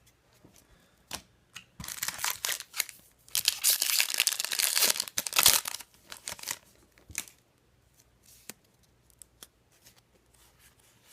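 Wrapper of an Upper Deck Series 1 hockey card pack being torn open with crinkling, loudest for a couple of seconds about three to six seconds in, then a few rustles and light clicks as the cards are handled.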